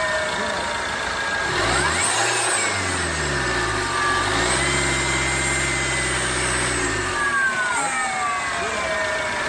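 A faulty turbocharger whistling on a car engine. A high whistle rises and falls with the engine's revs, which are blipped once about two seconds in, then raised and held for a few seconds before dropping near the end.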